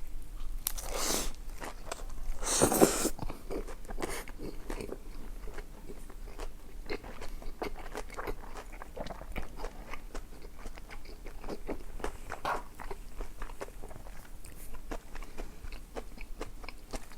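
A person eating close to the microphone: wet chewing and lip smacks in quick, uneven clicks, with two louder, longer mouth sounds about one second and nearly three seconds in.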